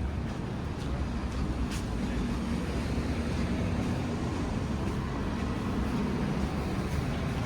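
Steady low rumble of city traffic, vehicles running along the street, with a couple of faint sharp ticks.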